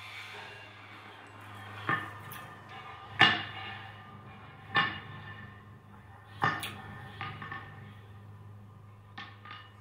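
Experimental soundtrack of sharp struck hits at irregular intervals, each leaving a short ringing tone that fades, over a steady low hum. The loudest hit comes about three seconds in.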